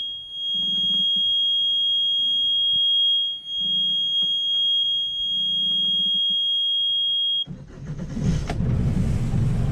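Yanmar 4JH3E four-cylinder marine diesel's instrument-panel alarm buzzer sounding as one steady high tone with the key on. About seven seconds in it cuts off suddenly and the diesel starts and runs, its noise rising near the end. This shows the repaired starter circuit now starts the engine.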